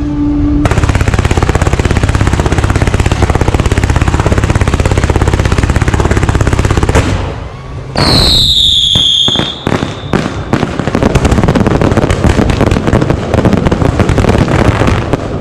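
Fireworks and firecrackers going off: a dense, fast crackle for about seven seconds, a loud falling whistle about eight seconds in, then more rapid bangs.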